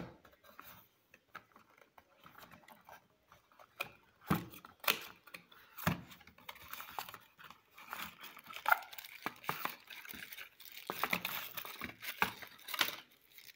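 Unboxing handling noise: cardboard box parts and trays knocking and plastic packaging crinkling in scattered taps and rustles, busier in the second half.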